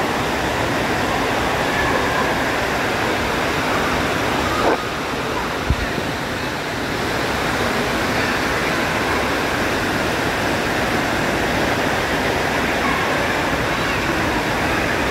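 Steady rush of churning water and splashing in an indoor pool, with faint voices mixed in and a brief low bump about six seconds in.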